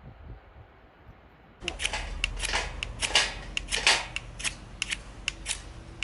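Faint, muffled low sound, then, after a cut about a second and a half in, an irregular run of many sharp clicks and crackles, the loudest about three and four seconds in.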